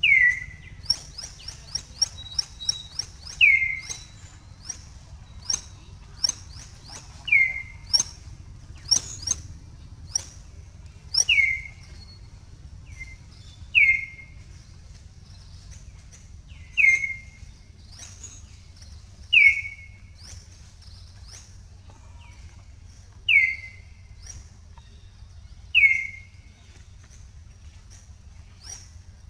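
A high whistled call: a short note sliding down, repeated about every two to three seconds, with a quick run of high chirps near the start.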